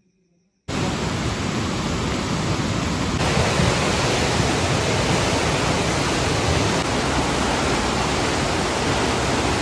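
River in flash flood rushing, a loud, steady torrent of water that starts suddenly just under a second in.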